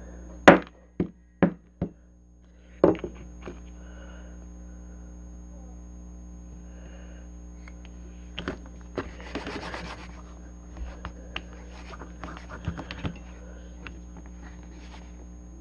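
A wooden mallet strikes a lump of Play-Doh on a table, giving about five sharp knocks in the first three seconds. From about eight seconds in, softer clicks and rubbing come as the dough is squeezed and worked between the hands.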